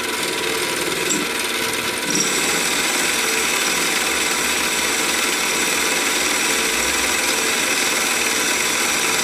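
Harbor Freight 7x10 mini lathe running with its tool cutting a spinning piece of 1018 steel. About two seconds in, the sound grows a little louder and a thin, steady high whine sets in as the cut takes.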